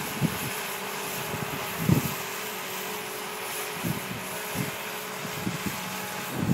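Faint, steady whine of an RC speedboat's twin 380 brushed electric motors running at full throttle under towing load, heard from a distance, with wind buffeting the microphone in gusts, the strongest about two seconds in.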